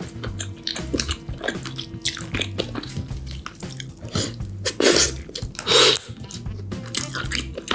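Steamed king crab being picked apart by hand: crackling of shell and wet clicks of meat and juices, with two louder bursts about five and six seconds in.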